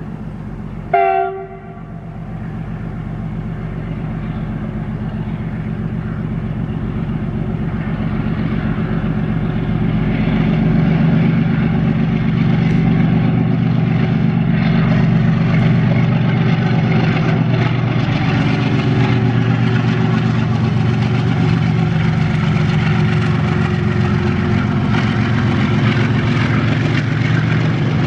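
A short horn blast about a second in, then the steady drone of a WDG-4G diesel locomotive hauling a double-stack container train, growing louder over the first ten seconds as it approaches and then holding.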